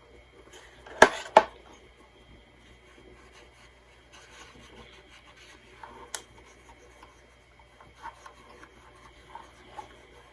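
Faint scratchy rubbing noises over a low hum, with a few sharp clicks, two close together about a second in and another near six seconds. These are the little clicks from the Crown HT 460 AM radio's speaker as it is tested after a battery fix.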